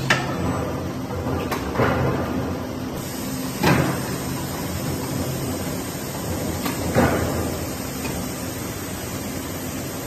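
A palletizing gripper handling metal paint pails over a steady machine hum, with four sharp metal clanks and knocks. The clanks are spaced a couple of seconds apart, the loudest about a third and two-thirds of the way through.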